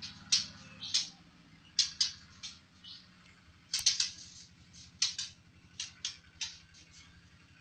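White-rumped shama (murai batu) singing a string of short, sharp high notes at irregular intervals, about two or three a second.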